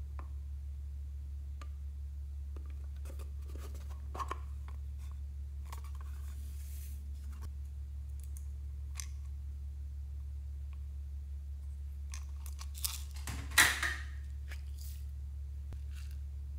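Quiet handling of small plastic toy containers over a glass dish of slime: scattered light clicks and short rustles, with one louder burst of clattering noise about three-quarters of the way through, over a steady low hum.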